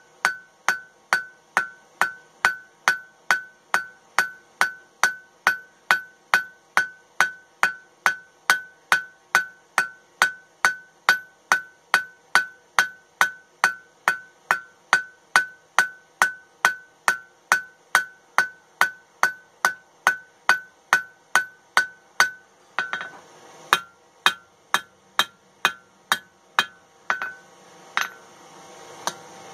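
Cross-peen hammer striking red-hot flat stock on a steel anvil, each blow ringing clearly, at a steady two blows a second, peening the bar's end out into a fishtail. After about 22 seconds the blows become fewer and uneven, then stop a couple of seconds before the end.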